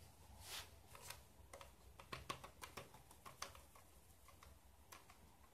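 Faint, irregular light ticks and taps of a hand-held wire-mesh sieve being shaken and tapped to sift flour.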